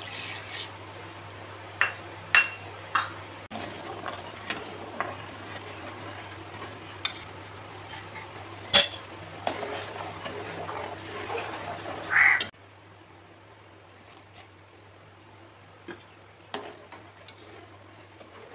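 Metal spoon stirring milk in an aluminium pot, with scattered sharp clinks and scrapes against the pot. The loudest clink comes about nine seconds in.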